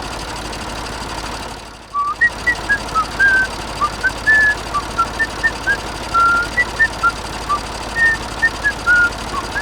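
Whistling: a quick run of short notes at changing pitch, about two or three a second, beginning about two seconds in over a steady background noise.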